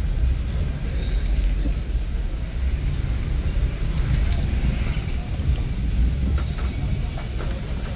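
A car's engine and tyre noise heard from inside the cabin while it drives slowly through traffic on a wet road: a steady low rumble, with a few faint clicks in the last couple of seconds.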